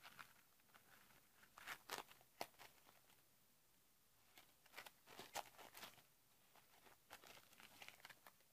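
Faint handling noise as the leather-look case of a precision screwdriver set is opened and unfolded over tissue paper: scattered soft crinkles, rustles and small clicks in three short clusters.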